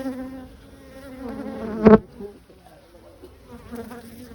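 Honeybees buzzing around an open hive, a wavering drone. About two seconds in the buzz swells loud, as if a bee passes close, and ends in a brief thump, after which the buzzing goes on more faintly.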